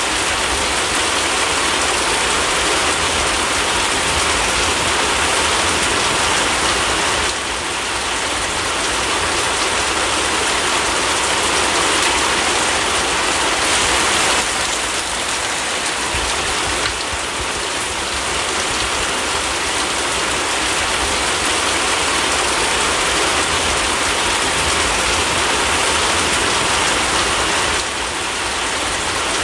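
Steady, heavy rainfall: a dense, even hiss of raindrops, dipping slightly in loudness a few times.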